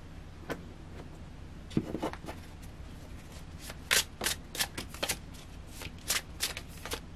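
A deck of tarot cards being handled and shuffled by hand: a soft knock about two seconds in, then from about four seconds in a quick, uneven run of sharp card clicks and slaps.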